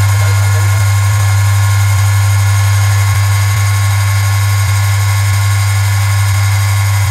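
Small benchtop lathe running steadily with a wooden workpiece spinning in its chuck: a strong, even low motor hum with a faint steady whine and hiss above it.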